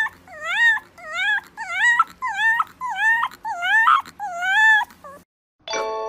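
A fluffy white puppy gives a run of high-pitched whining yips, about two a second, each call bending up and down in pitch. The calls stop about five seconds in, and a steady chiming tone starts near the end.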